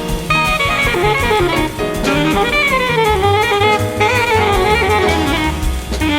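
Modern jazz recording: a soprano saxophone plays a winding melody that rises and falls, over piano, bass and drum kit.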